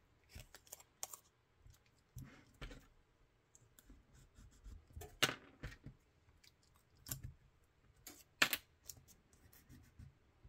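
Hands handling painter's tape and small strips on a tape-wrapped pistol: scattered light clicks, taps and rubbing, the sharpest tap just past five seconds and another about eight and a half seconds in.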